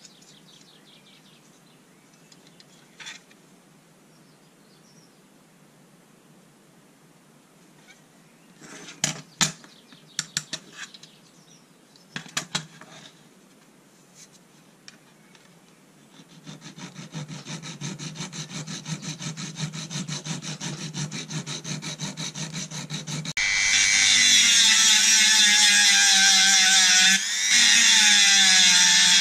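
A hand file rasping quickly and evenly against the steel rivet of a pair of scissors. Then a Dremel rotary tool starts about 23 seconds in and runs at high speed with a steady high whine, grinding the rivet head. The Dremel is much the loudest, with one brief dip near the end. Before the filing there are a few sharp clicks of the scissors and tools being handled.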